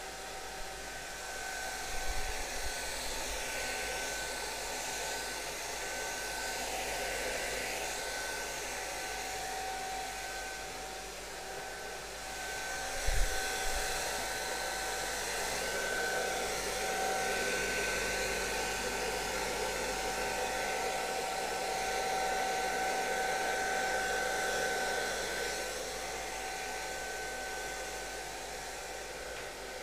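Hand-held hair dryer blowing steadily with a motor whine, its loudness rising and falling as it is moved over a freshly printed sheet of tracing paper to dry the ink. Two short knocks, the louder one about halfway through.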